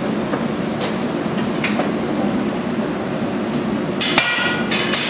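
Steady roar of gas-fired glassblowing furnaces and glory holes. A few metallic clinks of a steel blowpipe and tools on the bench rails sound over it, and the loudest, about 4 seconds in, rings briefly.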